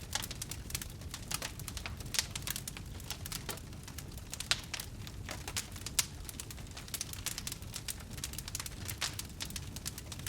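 Fire burning: an irregular run of crackles and sharp pops over a steady low rumble of flames. A few pops stand out louder, about two, four and a half, and six seconds in.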